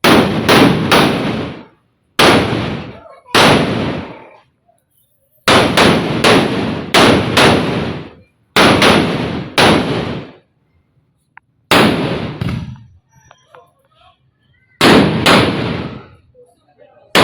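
Firecrackers (petasan) going off with very loud bangs, some alone and some in quick runs of two to five, each fading out over about half a second.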